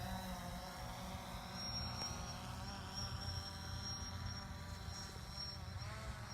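DJI Phantom Pro quadcopter's propellers buzzing as it flies by, the pitch of the buzz drifting and bending as it moves past.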